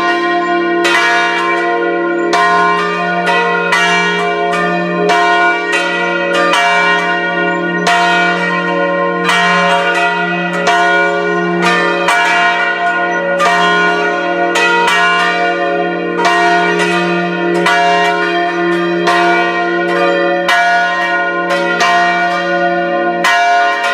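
Several Catholic church bells pealing together, a quick, uneven stream of strikes whose long ringing tones overlap: a festive peal announcing the coming of the Christ child at Christmas.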